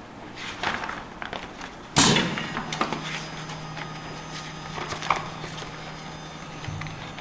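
Plastic workpieces clicking and knocking on a parts-sorting station's chutes and bins, with one loud sharp knock about two seconds in. A steady low hum starts just after the knock and stops near the end.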